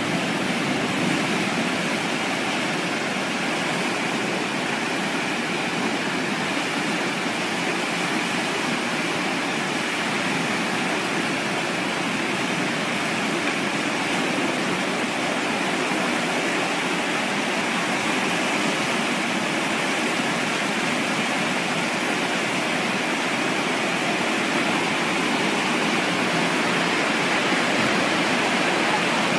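Muddy flash-flood water and debris rushing down a street, a steady, unbroken rush of torrent noise.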